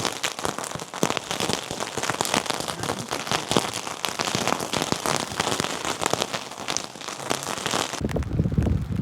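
Heavy rain falling, with dense patter and many sharp ticks of drops hitting a surface close by. About a second before the end it cuts off, giving way to a duller low rumble.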